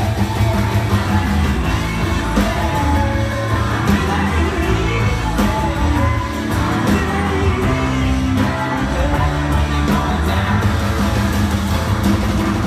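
Live rock band playing loudly, with electric and acoustic guitars, bass and singing.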